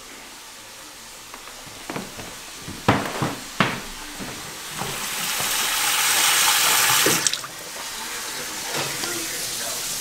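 Kitchen faucet running a stream of water into a stainless steel sink for about two seconds, then stopping abruptly. A few sharp knocks come before it, a second or two earlier.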